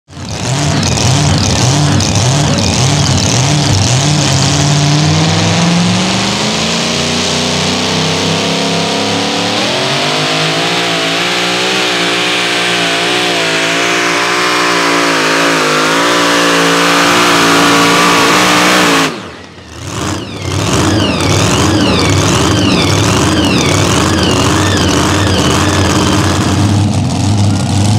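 Supercharged engine of a super modified two-wheel-drive pulling truck at full throttle under the load of a weight-transfer sled, its pitch climbing and then wavering as the tires spin and grab. About nineteen seconds in the sound drops away suddenly, then the engine is heard again running at a steadier, lower note.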